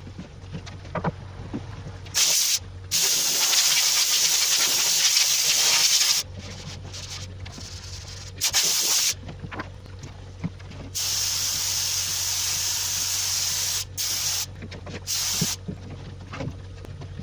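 Gravity-feed paint spray gun hissing in bursts as the trigger is pulled and released. There is a short burst, a long one of about three seconds, a few short bursts, another long one of about three seconds, and two brief ones near the end, over a low steady hum.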